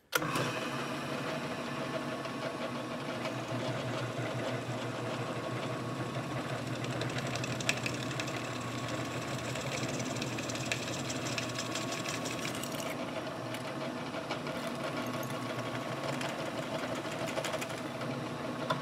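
Drill press running steadily, its twist bit cutting a hole through a forged steel ladle handle. The motor starts abruptly right at the beginning.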